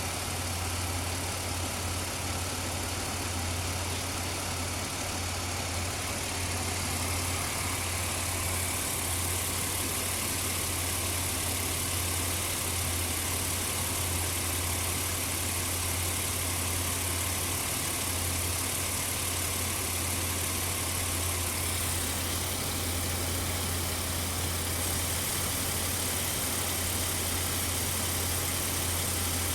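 2004 Ford Explorer engine idling roughly, a steady low hum with no change in speed. The rough idle goes with worn spark plug wires and a suspected bad alternator or voltage regulator.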